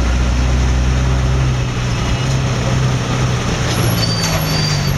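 Vehicle engine running steadily, heard from inside the cab, over the din of street traffic. A faint high squeal comes in near the end.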